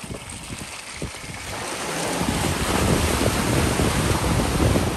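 Toyota Land Cruiser 300 driving off-road: a rough, uneven rush of tyre and wind noise that swells about two seconds in and then stays loud.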